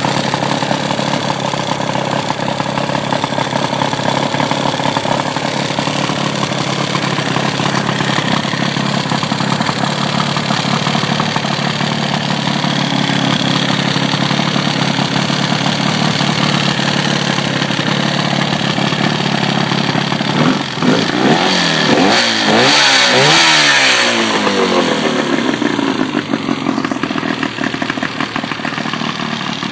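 Johnson 55 hp Seahorse two-stroke outboard running with its cowling off, idling steadily. About two-thirds of the way through it is revved up and back down a few times, then it settles back to idle.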